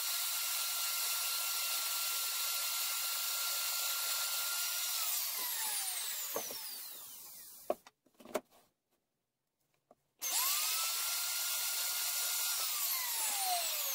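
Electric plunge router running at speed with a steady high whine, switched off about five seconds in and winding down with a falling pitch. A few sharp knocks and a short quiet gap follow, then the router is started again about ten seconds in, spins up to speed and winds down once more near the end.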